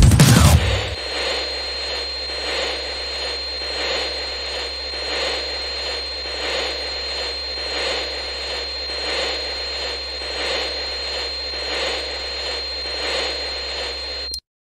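Loud music cuts off about a second in, leaving a steady droning hum with a thin high-pitched whine. The hum swells gently about every second and a half, then cuts off abruptly near the end.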